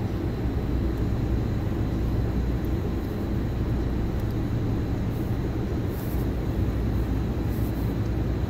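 A steady low rumble with a faint constant high whine, unchanging throughout.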